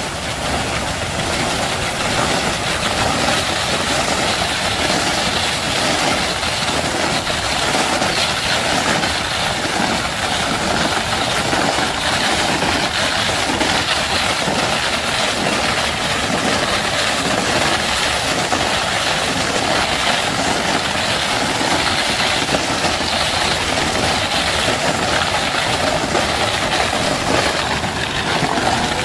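Roller ice-cream machine running with a steady mechanical noise as its large chilled steel drum turns, freezing a layer of fruit ice-cream mix spread over it with a foil pad.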